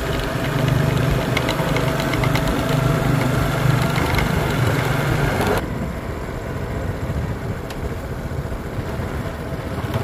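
Vehicle engine running steadily. A little past halfway the louder part of the sound drops off suddenly and a quieter rumble carries on.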